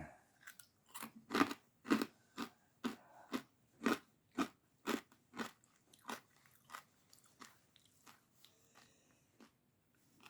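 Chewing crunchy chicharrones (fried pork rinds): a crunch with each bite at about two a second, growing fainter and sparser over the last few seconds.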